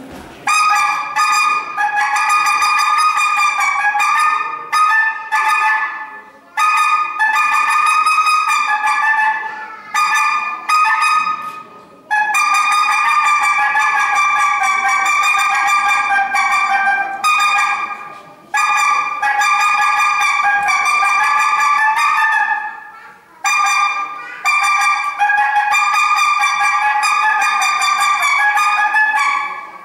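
A reedy, horn-like wind sound held in long steady notes, broken by short pauses about a dozen times.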